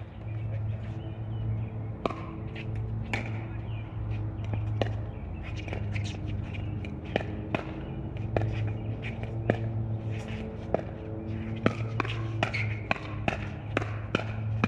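Pickleball rally: paddles hitting the hard plastic ball and the ball bouncing on the court, giving sharp pops roughly once a second that come faster near the end, over a steady low hum.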